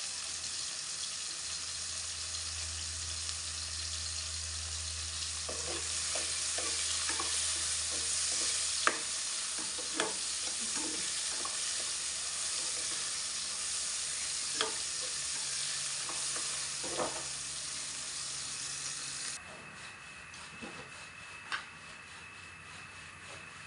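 A pan of tulya clams sizzling as it fries, with scattered clinks and knocks of stirring. The sizzle stops abruptly near the end.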